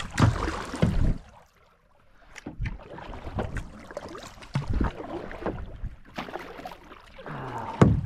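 Water splashing in irregular surges as someone moves through cold shallow water, with a brief lull about a second and a half in and a louder splash near the end.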